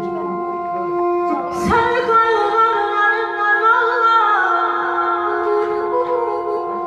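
A woman singing a long, ornamented vocal line into a microphone, her pitch bending and wavering, over a steady held accompanying drone. Her voice comes in about a second and a half in.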